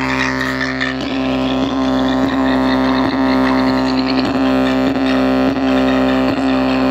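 Car audio speaker driven hard toward blowing, putting out a steady, heavily distorted low buzzing tone with a faint beat about every two-thirds of a second.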